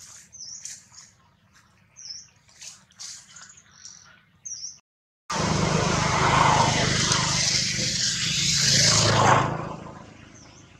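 Small birds chirping in short, high calls, several times. After a brief dropout, a loud, even rushing noise starts about halfway through, runs for about four seconds and then fades away.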